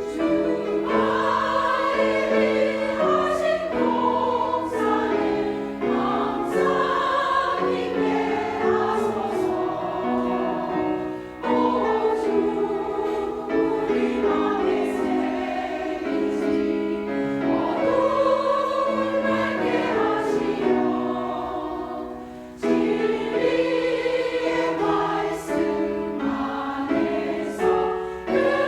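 Church choir singing a gospel anthem in several-part harmony, with sustained phrases and short pauses about 11 and 22 seconds in.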